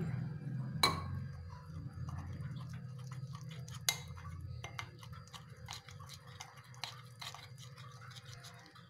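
Metal spoon stirring wet gram-flour batter in a steel bowl: soft wet squelching with irregular clicks and knocks of the spoon against the bowl, over a low steady hum.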